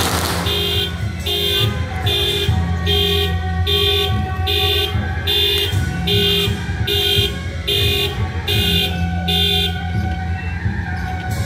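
An electronic alarm beeping in an even run of about two beeps a second, stopping a second or two before the end, over a steady low rumble.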